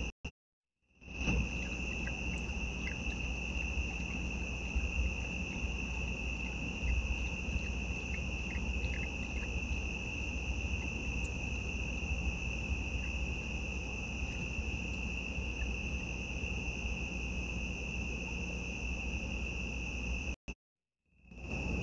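Crickets chirping in a steady, continuous high trill, broken off by two short silences: one about a second in and one near the end.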